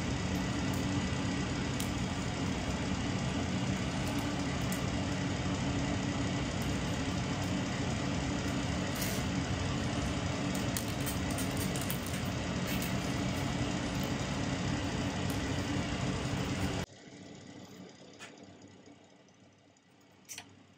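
Steady drone of a running motor with a strong low hum, which stops abruptly about seventeen seconds in. A few faint clicks follow.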